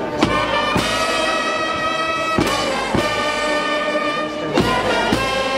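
Brass band of trumpets and trombones playing live, holding sustained chords. Pairs of sharp percussion strikes about half a second apart come roughly every two seconds.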